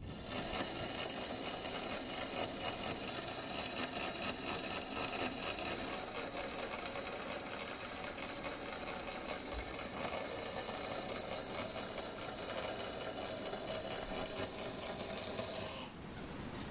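Small battery-powered electric motor of a Meccano model chainsaw running steadily, driving its metal chain and gears. It cuts off near the end.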